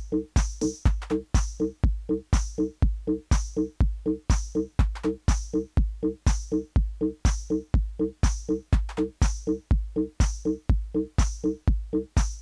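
Techno played live on hardware drum machines and analogue synthesizers: a steady four-on-the-floor kick drum at about two beats a second, a short repeating synth bass figure, and an open hi-hat between the kicks.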